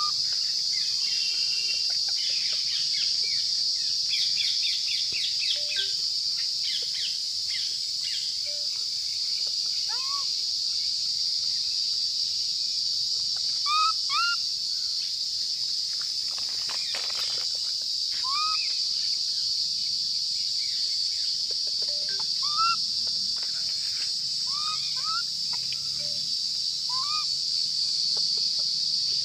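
Steady high-pitched drone of insects, with short rising calls every second or two over it and a brief rustle about halfway through.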